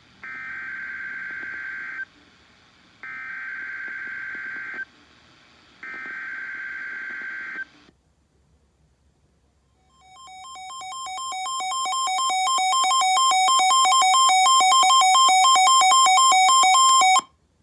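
Emergency Alert System header: three bursts of SAME digital data tones, each about two seconds long with a second's gap between. After a short pause comes the long, steady two-note attention tone, which swells up over a few seconds and cuts off abruptly. Together they mark the start of a new weather warning broadcast.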